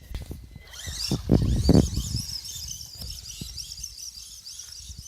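Small birds singing, a quick run of high chirping notes that starts about a second in and keeps going. A loud low rumble on the microphone comes about a second and a half in.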